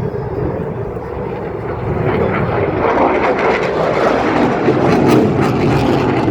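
Eurofighter Typhoon's twin EJ200 jet engines heard as a loud rough roar from a display flypast, growing louder about two seconds in and staying loud with a crackling edge.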